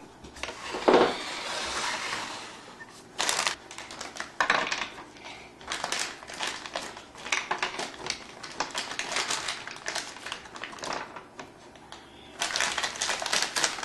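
A plastic bag of chocolate candy-melt wafers rustling, then many quick clicks as the hard wafers are handled and dropped into a plastic melting tray.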